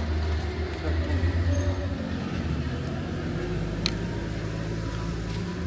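Low, steady rumble of a motor vehicle's engine running, with one faint tick about four seconds in.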